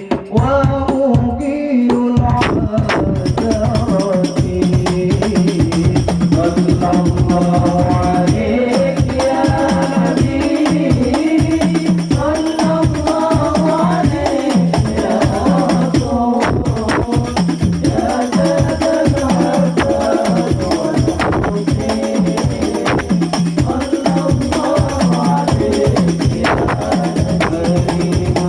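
Devotional sholawat music: a sung melody over a steady beat of hand drums with jingling tambourine.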